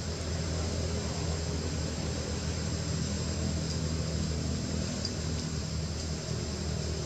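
Steady low droning hum with a steady high-pitched whine above it. The level never changes and there are no animal calls.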